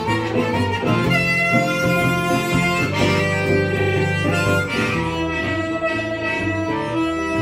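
Diatonic blues harmonica played with hands cupped around it against a microphone, over guitar accompaniment: a steady instrumental passage.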